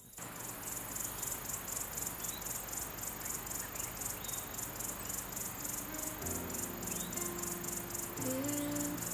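Crickets chirping in a steady, rapid pulse. A few held musical notes come in about six seconds in.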